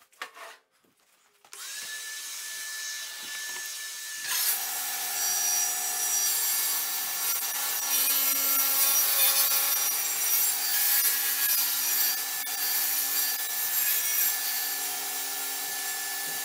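Kity table saw switched on about a second and a half in, its motor and blade spinning up to a steady whine; from about four seconds in the blade cuts through the chipboard base of a crosscut sled as the sled is pushed forward, a louder, harsher sawing noise over the running whine.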